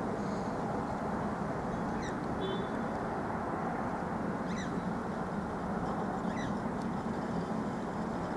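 Steady low rumble of a Boeing 777-300ER's GE90 jet engines as the airliner passes overhead on approach. A few short falling bird chirps sound over it, about two, four and a half and six and a half seconds in.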